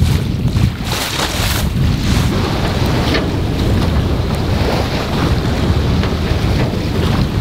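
Wind buffeting the microphone in a loud, uneven low rumble, over the steady hiss of water rushing past a sailboat's hull under sail.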